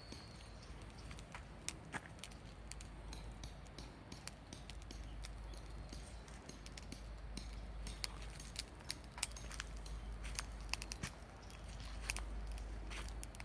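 Wood fire crackling, with irregular sharp snaps and pops, a few of them louder, over a low steady rumble.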